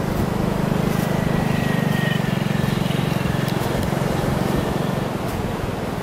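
A steady, low engine-like drone with a fast flutter, easing off slightly in the second half.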